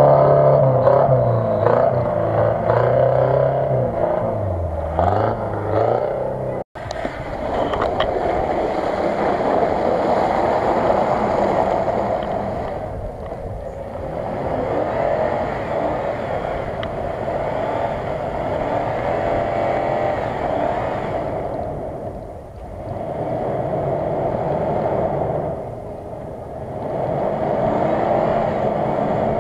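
Off-road 4x4 engines at work. For the first seven seconds another four-wheel-drive vehicle is driving off, its engine pitch dipping and rising. After a sudden break, a Toyota Land Cruiser 100's engine pulls it through deep mud ruts, the revs swelling and easing off several times.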